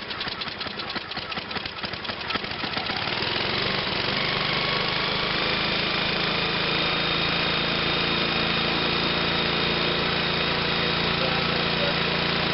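MTD snowblower's small gas engine running just after starting, uneven at first and settling into a steady run after about four seconds. It runs again now that the carburetor's clogged needle valve has been cleaned and fuel is getting through.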